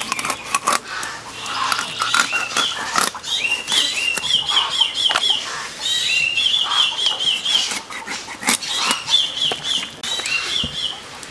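Raw tilapia being cut on a boti blade: sharp clicks and scrapes as the blade goes through scales and bone. Over it come several runs of short high chirps, five or six quick notes at a time, from a small bird or chick.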